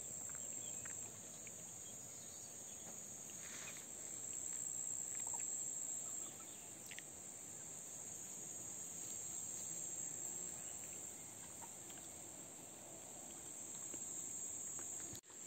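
Steady, high-pitched chorus of insects singing in the grass.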